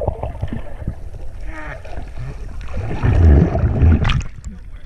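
Muffled underwater sound as a swimmer dives with the camera: water rushing and bubbling past the microphone, with heavy low thumps about three seconds in.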